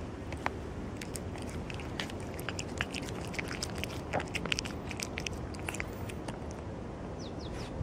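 A cat eating wet food from a plastic tub up close: a quick run of wet chewing and lip-smacking clicks over a steady low background rumble.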